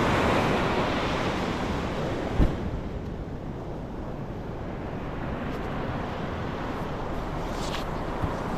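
Surf washing on the shore, with wind buffeting the microphone. There is a single dull thump about two and a half seconds in, and after it the wash is a little quieter.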